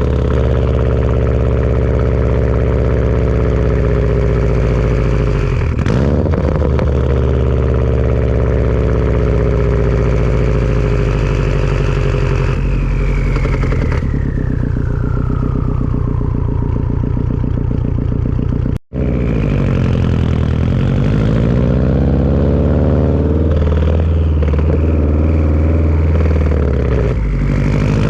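Turbocharged Subaru flat-four engine running through a Tomei turbo-back exhaust, its pitch rising and falling with the throttle. A turbo whistle glides down in pitch about halfway through. The sound cuts out for an instant about two-thirds of the way in.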